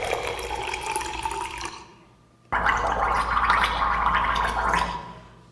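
Someone gargling with a mouthful of liquid: two long gargles with a short break between them.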